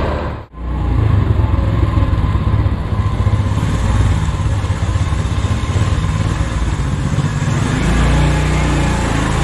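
Motorcycle engine running steadily at low speed as the bike is ridden slowly. The sound drops out for a moment about half a second in.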